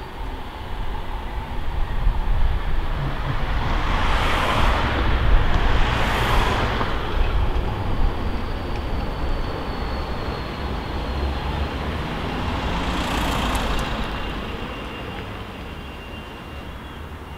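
City tram passing close by on its rails: a low rumble that builds over the first few seconds, holds, and fades near the end, with a thin high whine partway through. Street traffic runs underneath.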